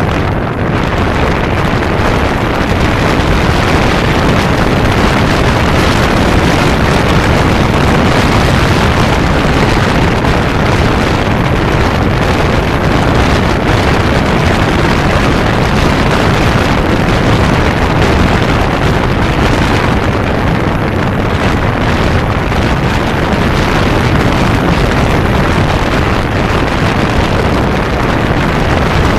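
1992 Kawasaki Zephyr 550 motorcycle riding steadily at road speed: constant wind rush on the bike-mounted microphone mixed with the engine running underneath.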